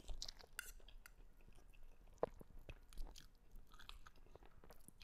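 Faint chewing and small mouth noises of a person eating fried instant noodles from a fork, with scattered soft clicks and one sharper click about two seconds in.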